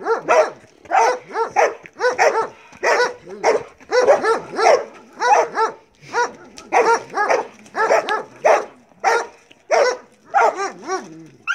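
Belgian Malinois barking continuously in repeated sharp barks, about two to three a second, the drive barking of a dog held on leash facing the decoy in protection bite work.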